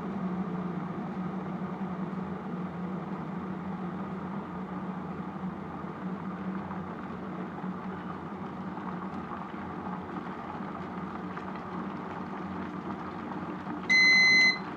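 A steady low machine hum, with one loud, high electronic beep lasting under a second near the end.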